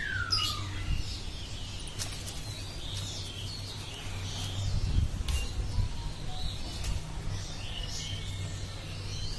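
Small birds chirping with scattered short high calls, one a falling whistle right at the start, over a steady low rumble. A few sharp clicks and rustles of handling come through, around two and five seconds in.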